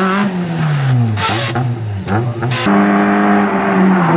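Rally car engine revving through a corner, its pitch falling and rising with the throttle, with two short rushes of noise. About two-thirds of the way through, a second rally car, a Škoda Felicia, is heard at steady high revs.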